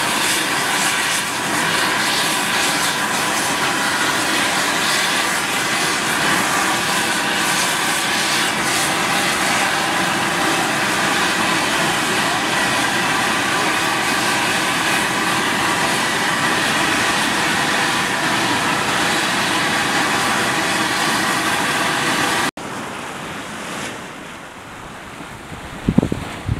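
Yellowstone steam vent (fumarole) venting steam with a loud, steady hiss. About 22 seconds in it cuts to a quieter wind noise, with a few low thumps of wind on the microphone near the end.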